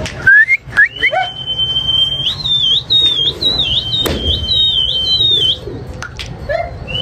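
A person whistling loudly to a flock of flying pigeons: a few short rising chirps, then a long high held whistle broken by warbling trills that stops about five and a half seconds in. A sharp snap sounds about four seconds in.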